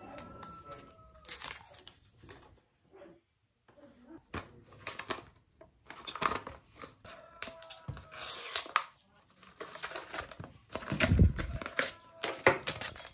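Packaging being torn open and crinkled by hand in uneven rustling bursts, with a heavier low thump about three quarters of the way through.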